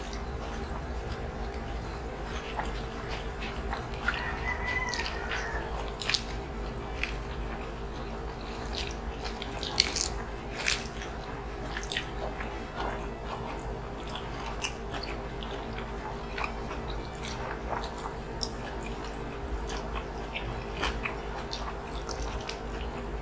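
Close-up eating sounds of hand-fed lechon kawali in coconut milk with rice and iceberg lettuce: biting and chewing with many short wet clicks and crunches.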